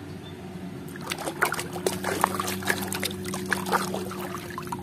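A hand splashing and swishing through muddy water in a plastic basin: a quick run of small splashes starts about a second in, over a steady low hum.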